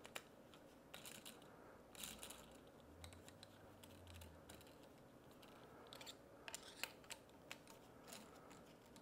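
Faint scattered clicks and taps of a hex driver and bolts being handled while the mounting bolts of a golf cart motor's new electromagnetic brake are started and snugged down by hand.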